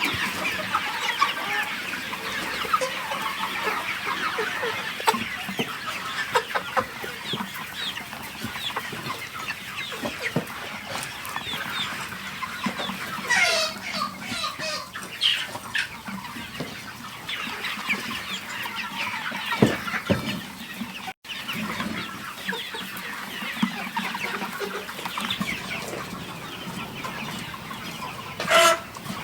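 A flock of chickens clucking and calling, many short calls overlapping, with louder drawn-out calls about halfway through and again near the end.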